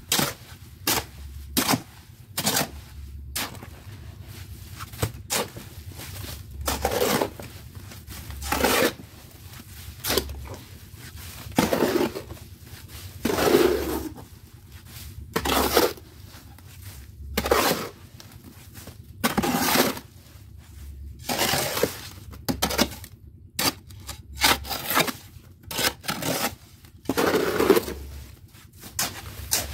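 A hoe chopping and scraping through sand-and-cement mortar mix in a steel wheelbarrow, with the blade grating against the metal pan. Short strokes repeat throughout, and a longer gritty scrape comes about every two seconds.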